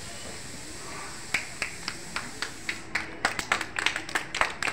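Young children clapping their hands: a few scattered claps at first, then from about three seconds in a quick, uneven run of many small claps.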